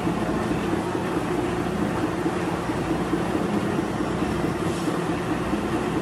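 Commercial bakery machinery running steadily: a continuous mechanical drone with a fast rattle.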